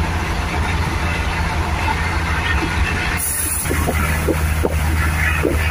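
Steady running noise inside a moving passenger train carriage with open windows: a low rumble of wheels on the rails mixed with rushing air. About three seconds in the sound jumps briefly at an edit, then the same running noise carries on.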